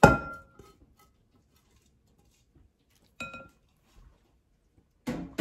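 Kitchenware clinking: a sharp clink with a short ring at the start, a smaller ringing clink about three seconds in, and a duller knock near the end, as cooked oatmeal is scraped from a glass bowl into a ceramic mixing bowl.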